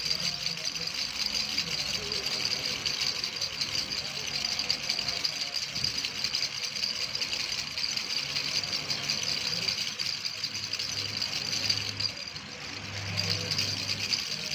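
A continuous fast rattle over a low steady hum. It dips briefly about twelve seconds in, then resumes.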